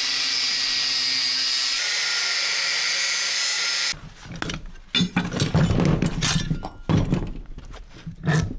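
A handheld power tool, drill-like, runs steadily for about four seconds while an electric motor is being taken apart, then cuts off. Irregular knocks and clanks of metal parts being handled follow.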